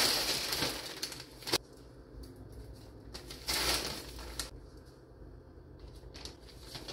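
Hydrated white millet poured from a plastic scoop into a plastic spawn bag: a rushing hiss of grain with the bag rustling, in two pours, one at the start and another about three and a half seconds in, with a sharp click between them.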